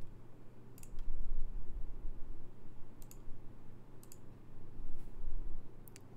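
Computer mouse clicks: four separate clicks spread over the few seconds, each a quick double tick of press and release, over a low steady hum.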